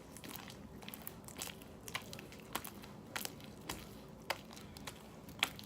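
Hands kneading and squeezing slime, making irregular sharp clicks and crackles.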